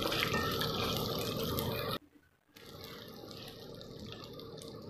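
Tempering of dals, ginger and chilies sizzling in hot oil in a nonstick pan, with a wooden spatula stirring. The sound cuts out for a moment about two seconds in and comes back quieter, with the curry leaves now frying.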